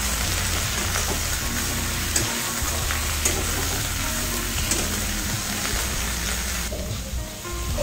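Cabbage and green capsicum sizzling in hot oil as they are sautéed over high heat in a wok, turned with a metal spatula that scrapes and clicks against the pan now and then. The sizzle eases briefly near the end.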